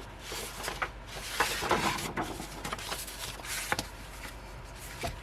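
Paper and card rustling, with a few light taps, as a folded album poster and the album's contents are handled.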